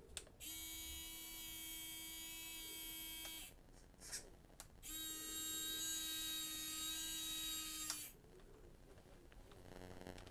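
A 1/10-scale RC4WD Warn 9.5cti winch's small electric motor runs twice with a steady whine, about three seconds each time, paying out the line and then reeling it back in. The second run is louder, and a few clicks come just before it.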